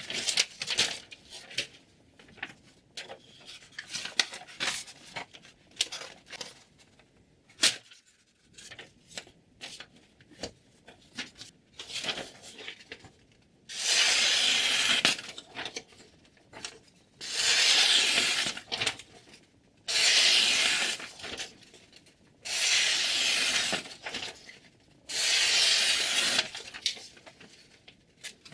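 A sharpening stone on a guided knife sharpener scraping along a chef knife's steel edge: short scattered scrapes and clicks, then five long even strokes about three seconds apart.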